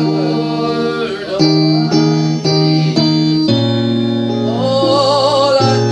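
Live worship music: instruments play held chords that change every second or so. About four and a half seconds in, a voice comes in holding a note with a wide vibrato.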